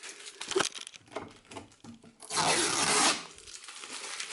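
Protective plastic film being peeled off a new washing machine: small crackles and rustles, then one longer, louder tearing peel a little over two seconds in.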